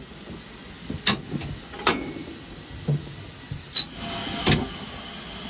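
Metal knocks and clanks from the fittings of a steam locomotive cab, about five of them, one with a short high squeak partway through. A steady hiss comes up about four seconds in.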